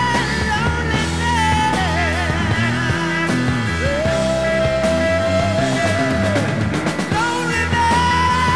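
Rock band studio recording playing, with long held, wavering lead notes over a thick, steady low accompaniment; one lead note glides up about four seconds in and is held for over two seconds.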